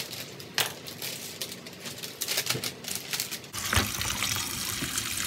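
A few sharp clicks and crinkles as a plastic bag is cut open with scissors, then from about three and a half seconds in, a steady stream of tap water running onto scallops in a plastic colander.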